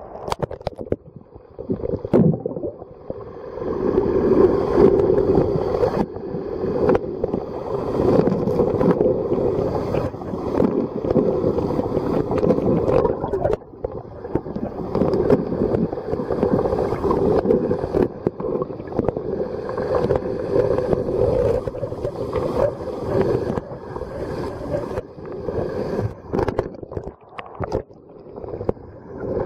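River water heard through a camera held underwater: a muffled, steady rushing and gurgling of the current, with many small clicks and bubbles.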